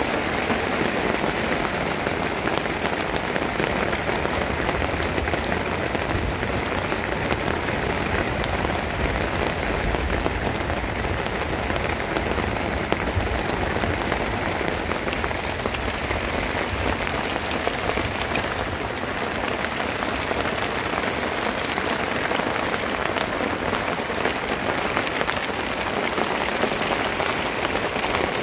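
Steady rain falling on wet, stony ground, a dense patter of drops. A low rumble sits under it for a few seconds in the middle.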